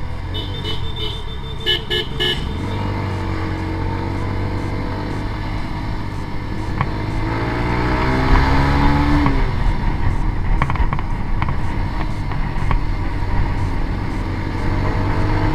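Yamaha SZ-R motorcycle's single-cylinder engine running under way in traffic, with a vehicle horn sounding one short honk and then three quick beeps in the first couple of seconds. The engine pitch rises under acceleration from about seven seconds in and drops off suddenly a couple of seconds later.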